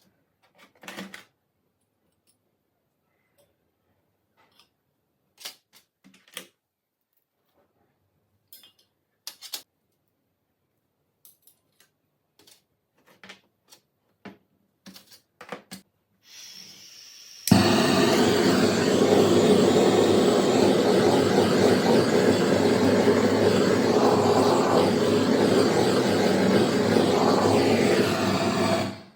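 Scattered light clicks and taps of small parts being handled, then about halfway a motorized power tool starts and runs steadily and loudly, stopping abruptly near the end.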